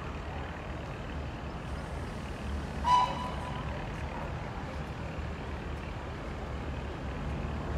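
Low steady rumble of an approaching diesel railcar, with one brief high toot, most likely its horn, about three seconds in.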